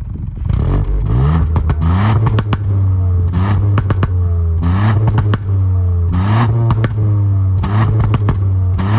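Ford Puma ST's 1.5-litre three-cylinder turbo petrol engine revved repeatedly through its twin tailpipes. The revs rise and fall about every second and a half, with sharp cracks among the blips.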